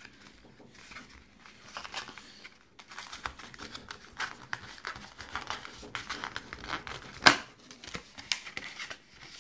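Hands opening the envelope-style flap of a cardboard box, with irregular rustling, scraping and crinkling of packaging and one sharp click about seven seconds in.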